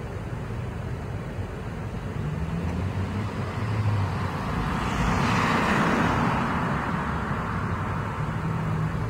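Street traffic: a car passes close by, its noise swelling to a peak about five to six seconds in and then fading, over a low engine hum.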